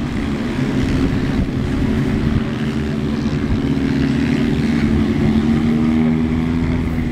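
Polaris RZR side-by-side engines idling steadily.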